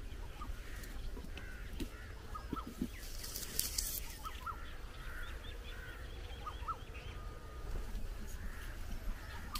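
Birds calling: scattered short chirps and upslurred whistles, with a quick run of short high notes near the middle and a brief hiss a little after three seconds, over a steady low rumble.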